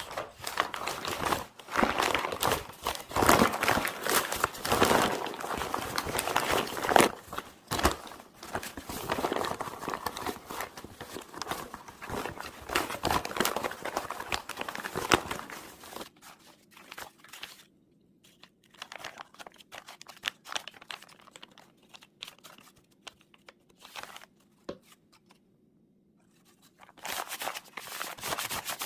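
Crinkling and rustling of something being handled, dense and busy for about the first half, then sparse light rustles and clicks, with another burst of crinkling near the end.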